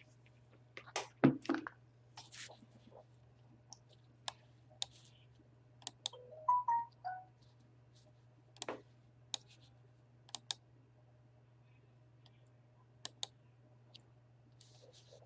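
Scattered computer keyboard typing and mouse clicks, irregular and sparse, over a faint steady low hum. About six and a half seconds in there is a short tonal sound of a few notes.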